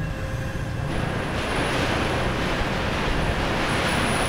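Yard background noise: a low rumble, with a rushing hiss that swells about a second in and eases near the end.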